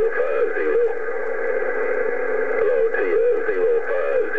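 CB radio receiver on 27.025 MHz playing distant stations: garbled, wavering voices heard through the radio's narrow, tinny audio.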